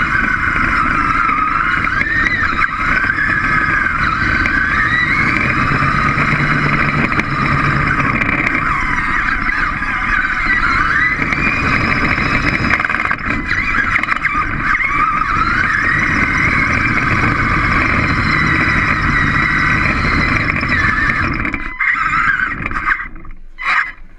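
Small robot's electric drive motors whining as it drives, the pitch sliding up and down as it speeds up, turns and slows, over a steady low running noise. The whine drops away briefly near the end as the robot stops.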